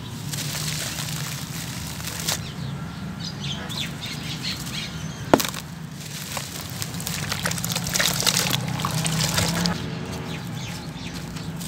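Soaked sand-cement chunks being squeezed and crumbled by hand, a gritty crunching and crackling with bits dropping and splashing into a tub of foamy water. One sharp snap about five seconds in.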